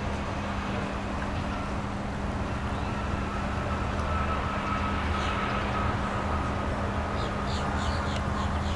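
Steady distant engine rumble with a constant low hum, and a faint high whine that comes in about a third of the way through and fades later. Near the end a run of quick, high chirps repeats several times a second.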